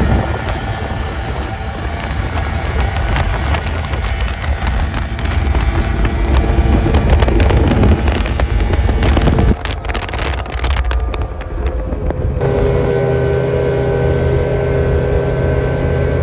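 Outboard engines of river race boats running at speed as the boats pass, with wind buffeting the microphone. About twelve seconds in, a steadier engine tone takes over as a second boat comes by.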